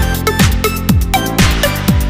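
Electronic dance music with a steady kick-drum beat, about two beats a second.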